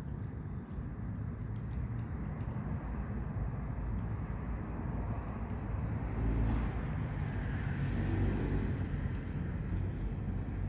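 Street traffic rumbling steadily, with a vehicle passing that swells and fades in the second half.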